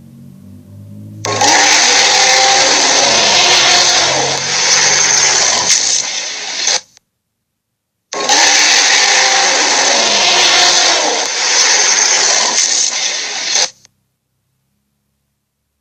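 Cartoon sea monster sound effect: a harsh, rasping monster cry with wavering pitch, played twice, each lasting about five and a half seconds and cutting off sharply.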